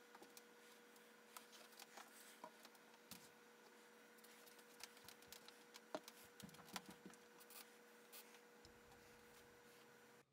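Near silence: faint room tone with a low steady hum and scattered faint ticks and clicks.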